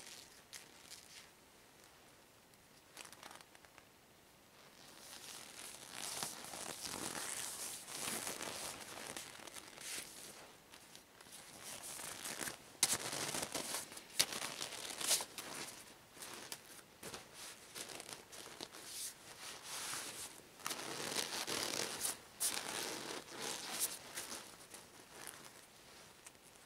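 Long green rubber gloves crinkling and rubbing as they are pulled on and worked over the hands and arms, starting about five seconds in, with a few sharp snaps of the rubber near the middle.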